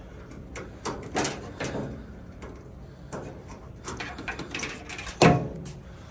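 Clicks, taps and clatter of dryer cabinet parts being handled during disassembly, with one loud knock about five seconds in.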